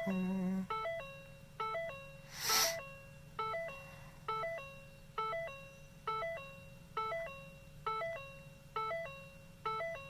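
2012 Ford Focus warning chime dinging over and over, about once a second, sounding because the key is left in the ignition with the door open. A short burst of noise about two and a half seconds in.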